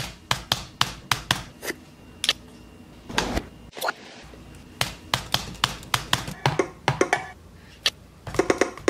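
Typing on a laptop keyboard: a run of sharp, irregular key clicks, broken off briefly near four seconds in, with a quick cluster of taps near the end.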